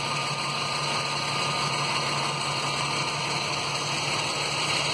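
1991 Jeep Wrangler YJ's 4.0-litre straight-six engine idling steadily, a constant low hum under an even hiss. It is a smooth, steady idle that holds just under 20 inches of manifold vacuum, which the owner reads as normal engine operation.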